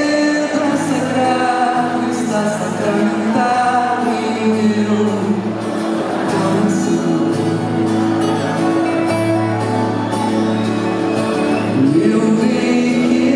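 Live concert music: a band playing a Brazilian pop song, with a woman singing.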